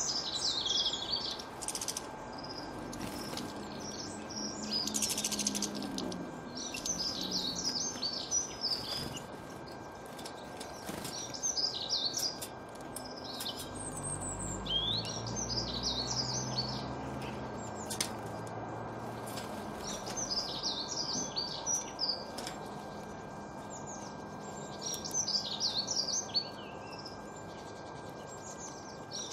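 Small garden songbirds singing in short, quick twittering phrases every few seconds, over a steady outdoor background in which a low rumble swells and fades in the middle.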